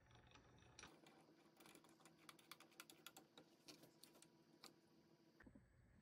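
Near silence with faint, irregular light clicks and ticks.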